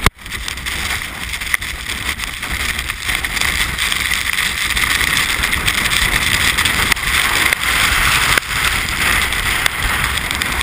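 Gale-force wind buffeting an action camera's microphone: a loud, steady rushing hiss over a low rumble, with a few brief knocks.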